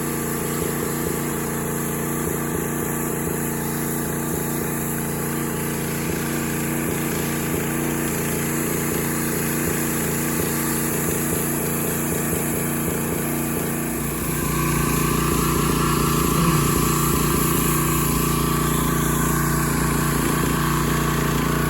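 Pressure washer's small engine running steadily, with the spray going. About fourteen seconds in it gets louder and a higher tone joins it.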